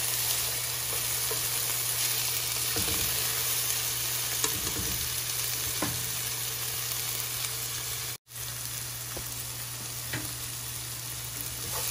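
Chopped onion, garlic and tomato sizzling steadily in olive oil in a non-stick frying pan, with a plastic spatula scraping and stirring a few times. The sizzle cuts out for a split second about eight seconds in.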